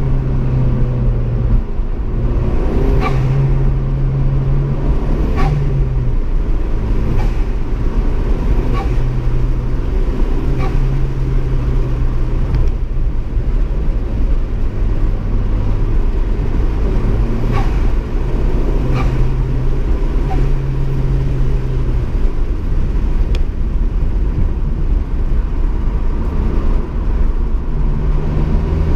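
GM LNF 2.0-litre turbocharged four-cylinder engine revved and released over and over. Each time the throttle is let off there is a quick turbo flutter, the chatter of compressor surge.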